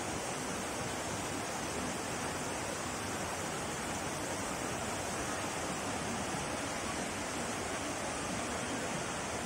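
Steady rush of a shallow rocky river running over boulders and small cascades.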